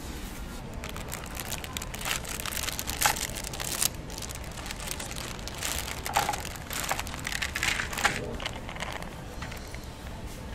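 Plastic wrapper of a Buldak hot chicken instant-ramen packet crinkling and rustling as it is handled and the dry noodle block is slid out into a paper bowl. It comes in irregular clusters, about two to four seconds in and again about six to nine seconds in.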